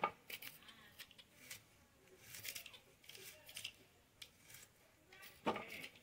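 Vegetables being cut with a blade: a string of short, irregular slicing and scraping strokes. There is one louder brief thump about five and a half seconds in.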